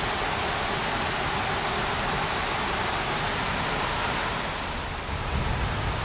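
Steady rushing of a mountain stream in the gorge, an even hiss of running water that thins a little about four and a half seconds in. After that, wind buffets the microphone with low rumbles.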